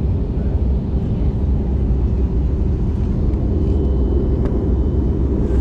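Steady low rumble inside a jet airliner's cabin, from the engines and rushing air, unchanging throughout.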